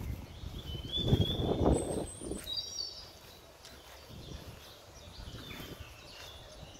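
Wind buffeting the microphone in gusts, loudest about a second in and then easing, with small birds chirping in short high calls.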